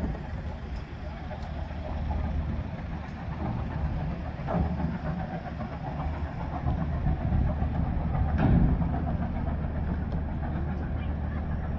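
Steady low mechanical rumble, swelling briefly about four and a half and eight and a half seconds in.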